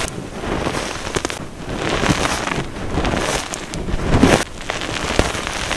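Hands pressing and crushing a thick bed of powdery gym chalk topped with coloured Holi powder: soft crunching and crumbling that comes in several swells, with small sharp crackles.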